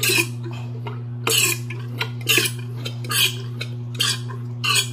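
Six short metallic clatters, roughly one a second, from the parts of a Yamaha Mio Soul i 125 front shock being worked by hand while the old fork oil is emptied, over a steady low hum.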